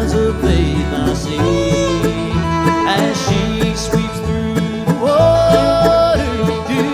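Bluegrass gospel band playing live: a man singing lead over strummed acoustic guitars and upright bass, holding one long note near the end.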